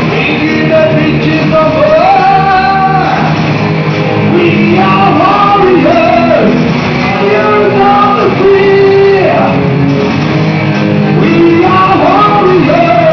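Heavy metal band playing a song in rehearsal: electric guitars over a keyboard part that stands in for the missing drums, with a sung melody line over it.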